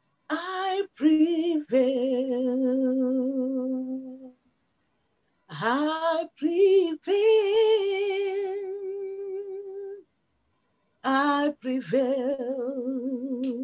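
A woman singing unaccompanied worship in three long, drawn-out phrases. Each phrase slides up into a held note with vibrato, and the sound cuts to dead silence between phrases.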